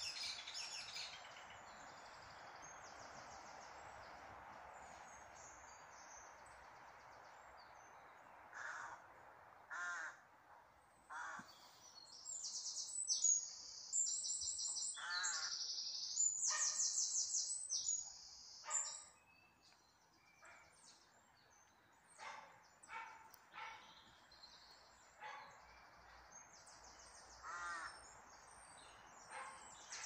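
Woodland birds singing: high, rapid trilled songs, loudest and densest from about 12 to 18 seconds in, with short lower calls scattered between. A faint steady rushing lies under the first several seconds.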